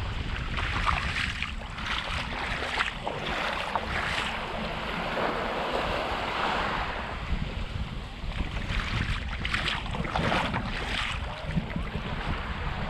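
Small surf waves washing up onto a sandy beach, with wind buffeting the microphone. Footsteps on the sand come about twice a second during the first four seconds and again around nine to eleven seconds in.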